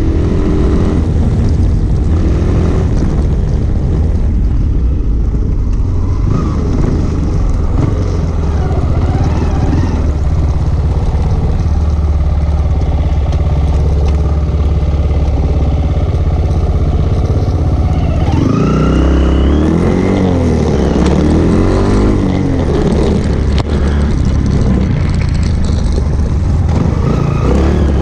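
Single-cylinder motorcycle engine running steadily under way; about two-thirds in, the revs rise and fall repeatedly as the throttle is worked.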